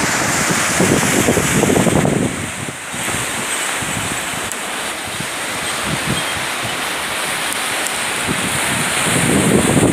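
Steady rushing of sea surf and wind, with gusts buffeting the microphone about a second in and again near the end.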